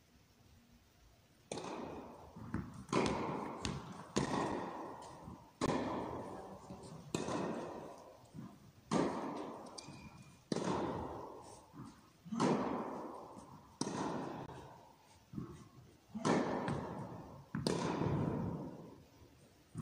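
Tennis balls being hit, a sharp strike about every one and a half seconds, each ringing out in a long echo around the large indoor tennis hall.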